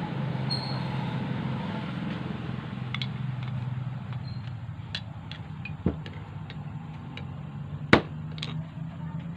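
Light clicks and taps of small carburetor parts being handled and fitted, with a duller knock about six seconds in and one sharp, loud click about eight seconds in, over a steady low hum.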